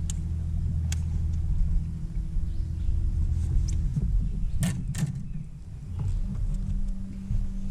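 A bass boat's electric trolling motor droning at a steady pitch, cutting off about four seconds in and starting again at a higher pitch near the end. A couple of sharp knocks come in the gap.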